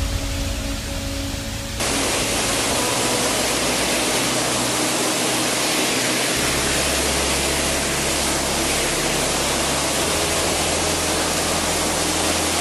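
Background music for about the first two seconds, then a sudden cut to the loud, steady rush of a waterfall pouring through the gorge below.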